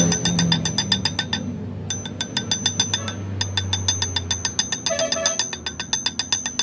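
Rapid, evenly spaced metallic ringing ticks, about eight a second, over a low motor hum, stopping briefly twice: metal striking metal on a running machine while a water pump shaft is worked.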